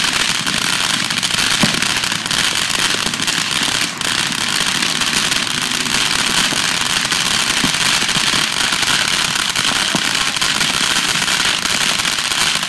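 Ground fountain firework spraying sparks: a loud, steady hissing rush with a few faint crackling pops.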